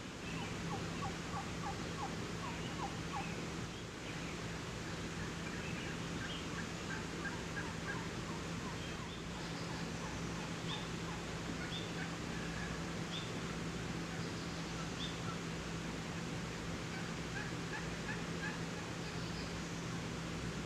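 Turkeys calling: several short series of quick notes, the first about a second in, over a steady background hiss and a low hum.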